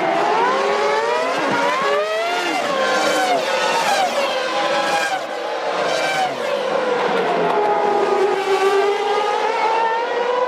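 Several 1998 Formula One V10 engines running at racing speed at once, each pitch climbing through the revs and dropping at gear changes as the cars pass.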